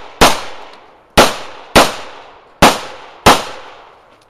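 Semi-automatic pistol being fired: five sharp shots, one and then two quick pairs about half a second apart, each trailing off in a fading echo.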